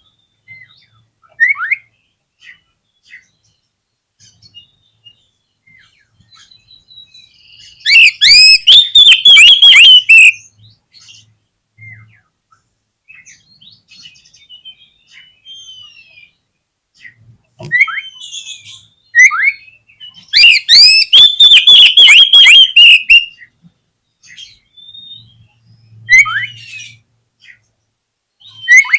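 Oriental magpie-robin singing: scattered short whistled chirps and glides, broken by two loud bursts of rapid, repeated notes, about eight and about twenty seconds in, each lasting two to three seconds. This is a lure song, played to provoke other magpie-robins into singing.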